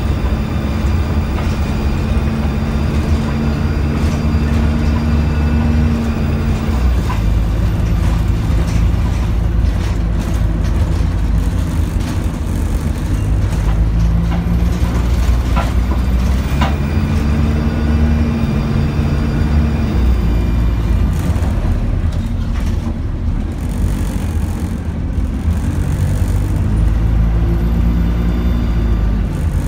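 Dennis Dart single-decker bus heard from inside the saloon while under way: a steady low engine rumble with road noise. The engine note climbs as the bus accelerates and then drops back, several times over, with occasional short rattles and clicks.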